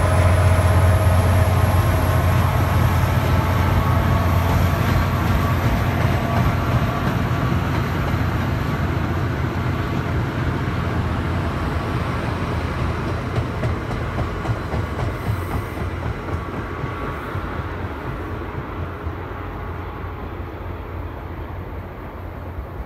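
MBTA commuter train's diesel locomotive and coaches moving away: a low engine drone with rumbling and clacking wheels on the rails, fading steadily as the train recedes.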